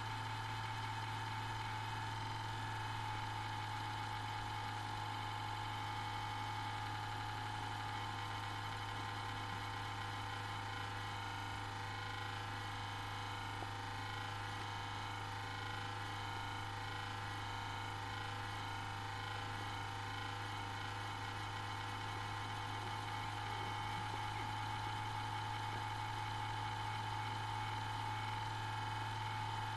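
Computer power-supply fan making a loud abnormal noise, a steady whine over a low hum with no change. The owner suspects the fan's shaft is out of alignment; the noise starts right after boot and dies away after about five minutes.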